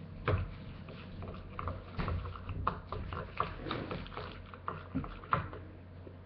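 A person eating off a spoon: a series of wet mouth clicks and smacks with small throaty noises in between.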